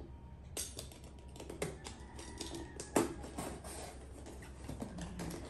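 A blade cutting and scraping along packing tape on a cardboard box, with irregular clicks and taps of the cutter and hands on the cardboard; one sharper knock about three seconds in.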